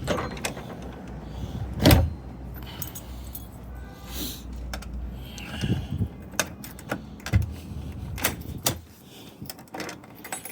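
Hands working a newly fitted gate lock and its keys: scattered metal clicks and knocks with keys jangling. The loudest knock comes about two seconds in.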